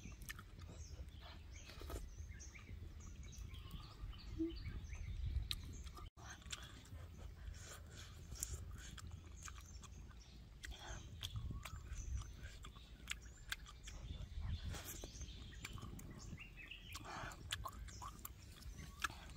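A person chewing cooked wild mushrooms close to the microphone, with soft wet clicks from the mouth coming irregularly throughout.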